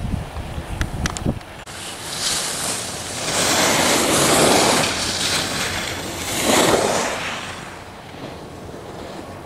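Skis scraping across the snow as a skier carves turns, a hiss that swells twice and then fades. Wind buffets the microphone for the first second or so.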